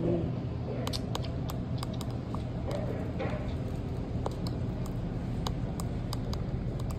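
Scattered light clicks and taps, about two or three a second and irregular, over a steady low background hum.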